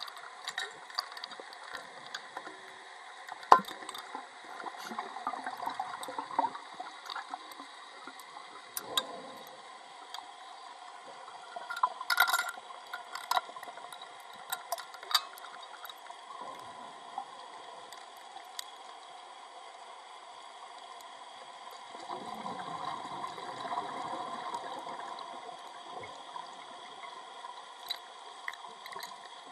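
Underwater sound around rebreather divers: scattered sharp clicks and crackles, with two spells of gas bubbling and gurgling, a short one about 5 s in and a longer one about 22 to 25 s in.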